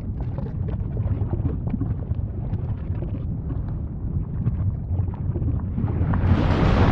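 Volcano erupting: a deep, steady rumble with scattered crackles and pops. Near the end it swells into a louder rushing hiss as a stronger burst sets in.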